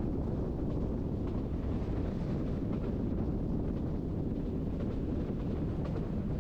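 Berner Oberland Bahn narrow-gauge train running, heard on board as a steady low rumble of wheels on rails with a few faint clicks.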